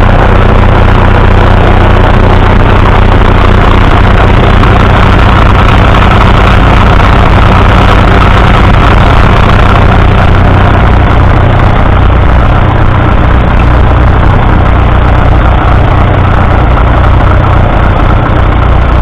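A Fordson Super Major's 3.6-litre four-cylinder diesel engine running steadily at a constant speed, loud and close.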